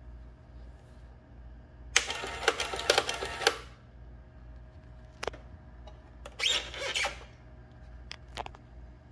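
Unitrex 14PPMD electric printing calculator running two print cycles: a rapid mechanical clatter lasting about a second and a half, then a shorter one, with single key clicks between and after.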